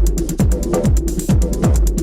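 Background electronic dance music with a steady kick-drum beat, about two beats a second, and ticking hi-hats.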